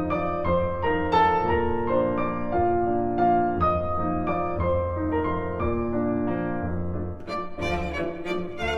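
Instrumental background music: a melody of held notes over a low bass line, growing fuller and brighter near the end.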